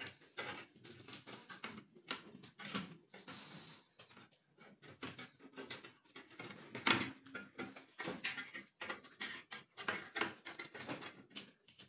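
Wire grill basket clinking and scraping against a ceramic plate in short, irregular knocks, as grilled fish is worked loose from the wires. The loudest knock comes about seven seconds in.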